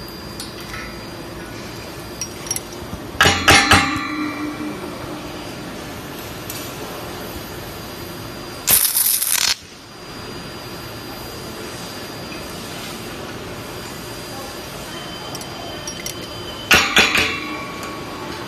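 Drawn-arc stud welding of steel shear studs through ceramic ferrules: about halfway through, the weld arc sizzles loudly for about a second and cuts off sharply. Sharp metallic clinks with a short ring come a few seconds in and again near the end.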